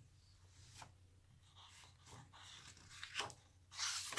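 Hardcover picture book being opened and its pages turned by hand: faint paper rustling and light taps, then a louder page swish near the end.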